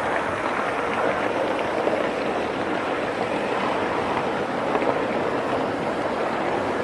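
Gauge 3 live-steam model of an LMS Coronation-class Pacific running past on garden track, giving off a steady rushing hiss of steam with no clear beat.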